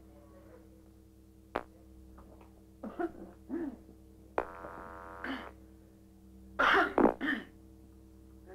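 Open telephone line while a long-distance call is being connected: a steady electrical hum, sharp clicks on the line, faint voices, and a short buzz near the middle. Near the end comes a loud cough.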